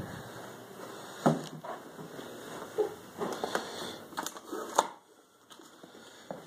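Footsteps on a staircase: several irregular knocks over a steady hiss, the loudest about a second in and again just before five seconds.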